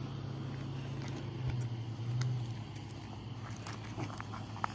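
A steady low hum, with a few light crunches on gravel near the end as the puppy moves about.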